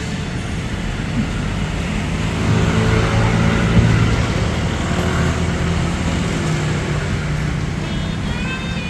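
A motor vehicle engine running with a low, steady hum that grows louder about three seconds in and then eases off.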